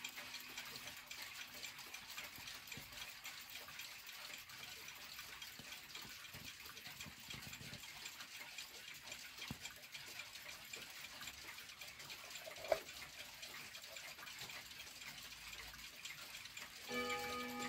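Low hiss with faint ticking and handling noise, and one sharp click about two-thirds of the way in as the hinged brass-rimmed glass bezel of the mantel clock is swung open. Near the end, the 1960s Glashütte mantel clock starts to chime as its minute hand is pushed round.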